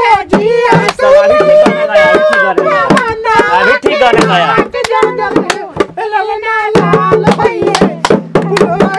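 Folk singing, a sohar-style birth song, over a dholak drum beaten in a steady rhythm, with hand claps.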